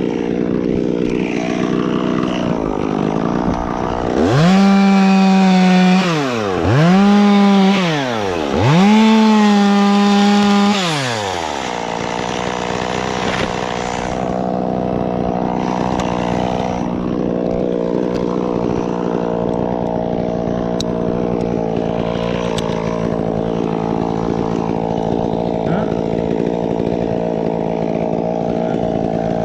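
Chainsaw idling, revved to full throttle three times in quick succession from about four seconds in, dipping between each burst, then settling back to idle for the rest.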